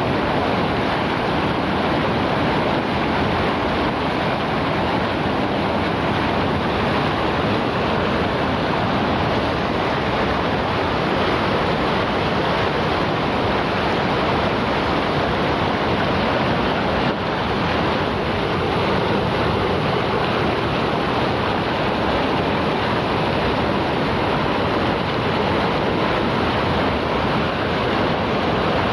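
River water rushing steadily, a constant, even roar of flowing water.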